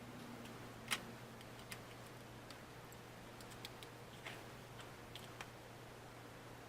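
Scattered small clicks and taps of plastic and metal laptop parts and tools being handled during a Chromebook teardown, about half a dozen, the sharpest about a second in, over a faint steady hum.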